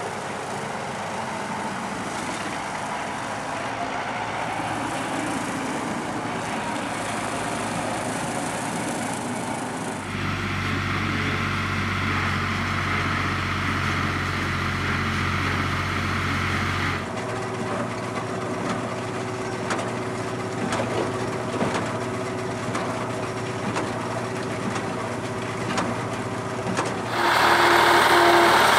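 Diesel tractor engines running in the field, heard as several recordings cut one after another. First a Zetor Proxima 7441 drives a Claas WM 20 mower. From about ten seconds in, an IHC 383 runs with a deeper, steady engine note. Near the end the sound jumps louder as an IHC tractor working a Fahr KH 4 rotary tedder comes in.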